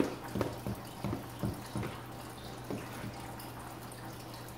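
Fry bread dough frying in hot grease in a skillet: a faint steady sizzle, with several short pops during the first two seconds.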